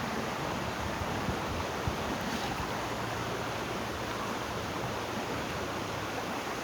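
Steady rushing of river water, an even hiss without any clear events.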